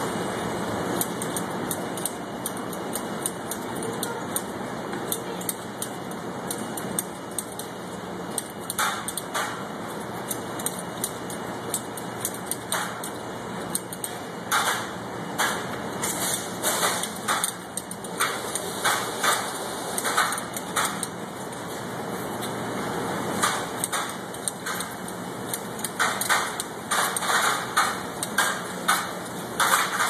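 Wire hangers clinking and scraping against a steel rail as garments are pushed along by hand, in quick clusters that are sparse at first and thicken in the second half. Under it runs the steady hum of the overhead garment sorting conveyor.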